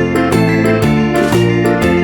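Background music: an electric piano or keyboard melody over a steady bass line.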